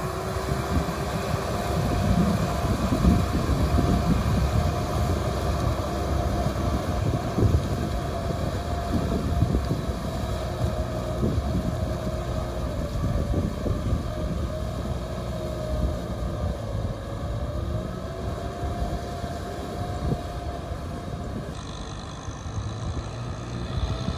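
Kubota M6040SU tractor's diesel engine running steadily under load while it drives a rear rotary tiller through wet paddy soil. A whine rises and falls slightly over the engine noise, with irregular knocks and clatter throughout.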